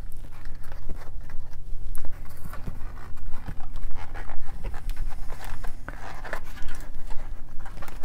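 Hands squeezing and turning a tubeless road bike tire on its rim: irregular rubbing and rustling with small clicks, over a steady low hum.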